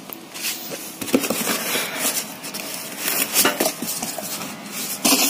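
A cardboard box of motorcycle parts being handled and rummaged through. Irregular rustling of cardboard and packaging, with small metal parts clinking and knocking, and a louder rustle just before the end.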